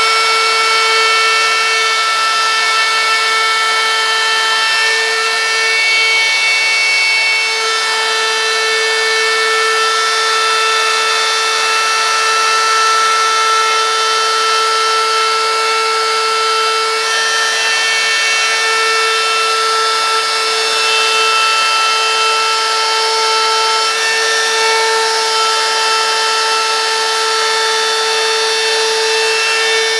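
Handheld electric wood router running steadily at full speed with a high, even whine, its pointed bit cutting a deep groove into the wood as it is pushed along freehand.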